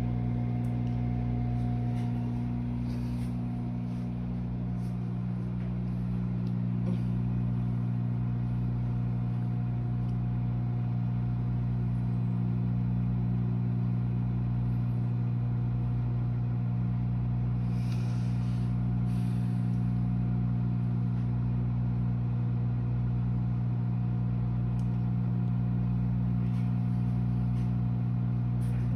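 Microwave oven running, heating marshmallows: a steady electrical hum with a faint even pulsing underneath.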